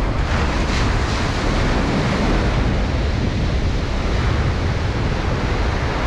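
Ocean surf breaking and washing up a sandy beach, a steady rushing wash, with wind buffeting the microphone and adding a low rumble.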